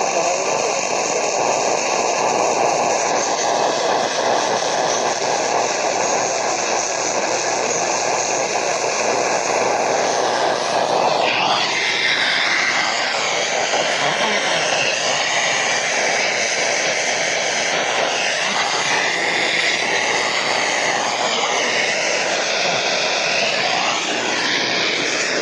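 Loud, steady hiss-like static over an AM radio signal, with wavering whistle-like tones drifting through it from about halfway in.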